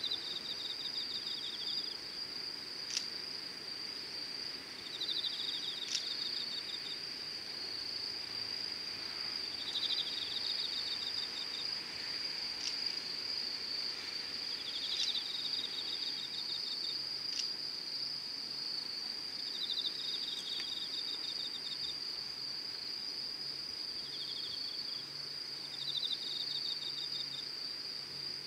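Insects singing: one keeps up a steady high trill, while another gives a pulsed, chirping trill of about a second, repeated every four to five seconds. A few faint ticks are scattered through it.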